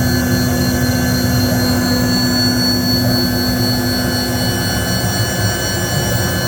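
Cue Demon CNC machine running a cutting pass that turns a square wooden shaft dowel round: a steady loud whir of the cutting spindle and motors. A low hum in it stops about four and a half seconds in.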